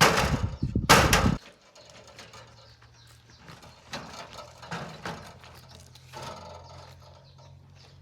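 Two heavy blows, one at the start and one about a second in, then quieter scattered taps and knocks over a low steady hum.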